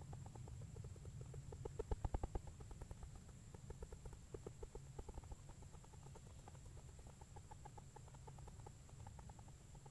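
Faint, rapid drumming: runs of short knocks at about a dozen a second, loudest in a burst about two seconds in and again around four to five seconds in, then fainter knocks continue, over a steady low hum.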